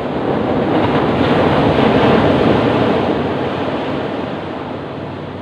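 Ocean surf: a wave's rush of water builds to a peak about two seconds in, then fades as it washes out.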